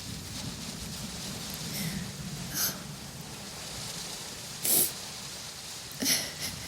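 A woman sniffling three times while crying, short sharp sniffs about two and a half, four and a half and six seconds in, over steady rain.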